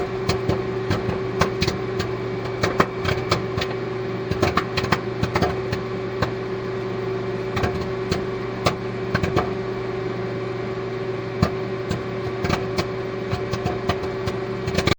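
A steady machine hum with a held tone, overlaid with many irregular clicks and crackles; it starts and stops abruptly.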